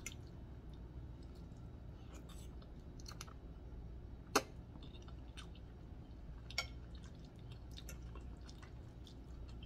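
Quiet chewing and wet mouth sounds of someone eating spaghetti, with scattered small clicks of a metal fork on a plate and one sharper click about four seconds in.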